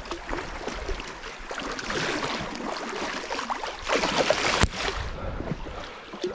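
Creek water splashing and swishing around wading legs in a shallow riffle, over the running stream; a single sharp knock about two-thirds of the way in.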